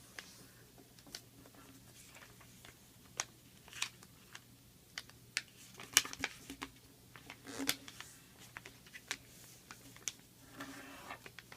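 Sheet of paper rustling and crinkling in the hands as its corners are folded to the center crease and pressed flat, in scattered short crackles and taps over a faint steady hum.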